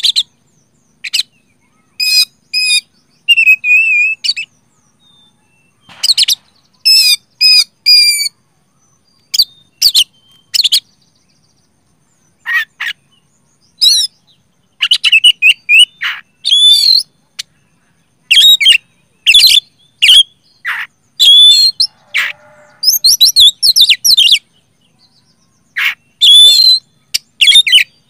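Oriental magpie-robin singing loudly in short bursts of sharp whistles and chattering notes, with pauses of a second or two between phrases and faster runs of notes near the end.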